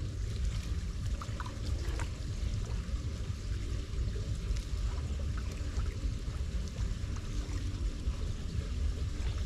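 Floodwater trickling and splashing around a curbside storm drain, with scattered light splashes of footsteps in shallow water over a steady low rumble.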